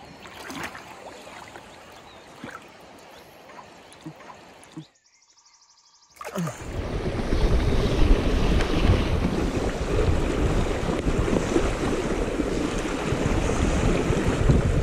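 Flowing river water, fairly soft at first, then after a brief break about five seconds in, loud rushing current mixed with wind buffeting the microphone in a heavy low rumble.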